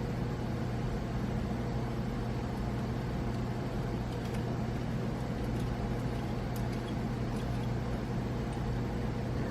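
Steady low mechanical hum of room background noise, with a couple of faint light ticks.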